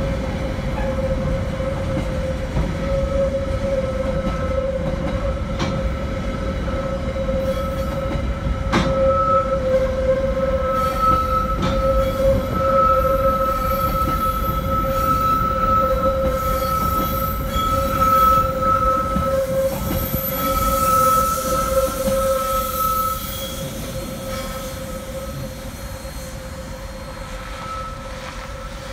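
Freight train of loaded container flatcars rolling past on a curve, its wheels giving a steady, high squeal over the low rumble, with a few sharp clicks. The squeal and rumble drop away about three-quarters of the way through as the last wagons go by.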